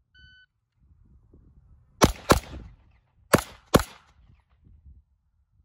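A short electronic shot-timer start beep, then four handgun shots fired as two quick pairs about a second apart.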